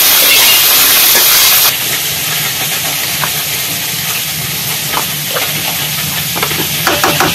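Small fish frying in oil in a wok, a loud sizzle that cuts off abruptly under two seconds in. Then a quieter hiss with a few clinks of a metal spoon against a steel bowl as steaming cooked food is stirred, several clinks in quick succession near the end.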